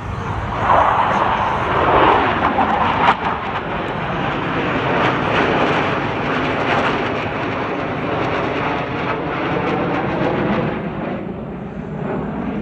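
Military display aircraft flying past with a loud engine roar. It is loudest in the first three seconds, with a sweep in pitch as it passes, then settles into a steady rumble.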